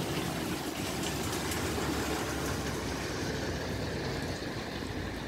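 Heavy machinery running steadily: the diesel engine of the machine working a Reptail aggregate spreader, with an even rushing noise over a low hum.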